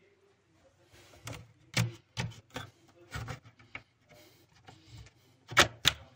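A string of irregular knocks and clicks, from footsteps on a hard floor and from handling of a handheld phone while walking, with two louder knocks near the end.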